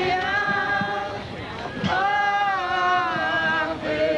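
Procession participants singing a Catholic hymn together, men's and women's voices holding long notes that change pitch every second or two.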